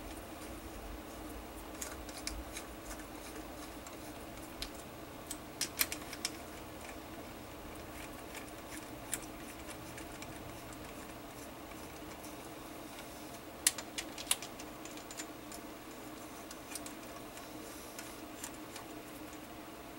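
Light metallic clicks and ticks of a T-handle driver running valve body bolts into a 48RE automatic transmission by hand, scattered through, with a few sharper clicks about six and fourteen seconds in, over a steady low hum.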